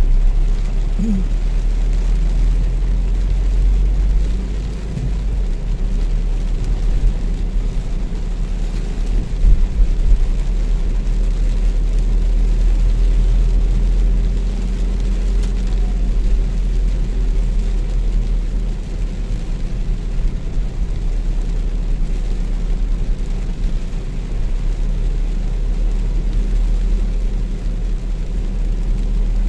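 A car driving in heavy rain, heard from inside the cabin: a steady deep rumble of engine and tyres on the wet road, with rain hissing on the roof and windshield. A short louder bump comes about ten seconds in.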